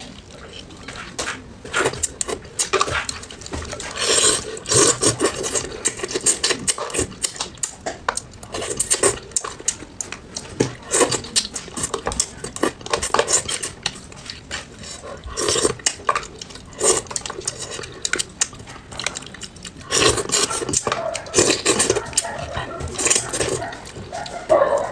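Close-up eating sounds of braised bream: chopsticks clicking on a plate and a plastic tub, with mouth sounds of sucking and chewing fish off the bones, coming in irregular bursts.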